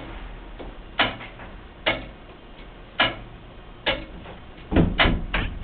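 Mechanical tower clock movement ticking, about one sharp tick a second. A heavier double knock comes near the end.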